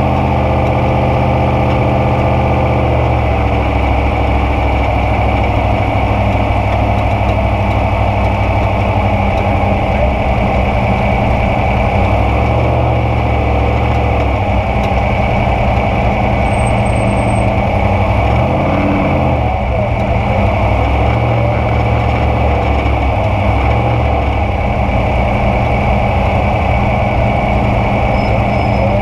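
900 hp Trophy Truck engine idling steadily, heard from inside the cockpit, with one quick blip of the throttle about two-thirds of the way through.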